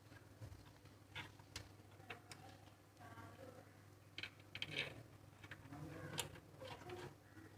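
Faint, irregular clicks and taps of the plastic cover and parts of a motor starter being handled and fitted together, over a steady low hum.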